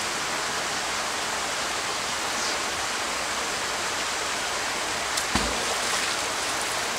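Steady rush of running water, with a single splash about five seconds in as a thrown fishing magnet drops into the canal.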